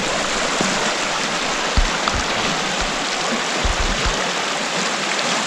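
Opalescent River running over rocks and small rapids: a steady, even rush of moving water. A few low thumps on the microphone come about two seconds in and again around four seconds.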